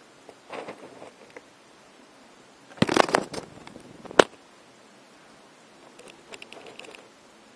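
Small mechanical clicks and crackles from a model railway layout, as servo-driven plastic gates on a model factory close. A louder clatter comes about three seconds in and ends in one sharp click just after four seconds, with fainter clicking near the end.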